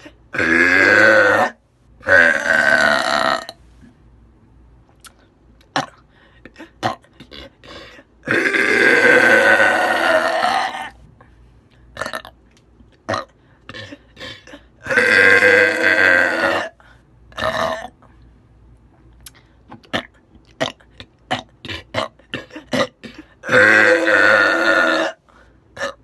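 A woman burping: five loud, drawn-out belches, the one in the middle lasting about two and a half seconds, with small clicks between them.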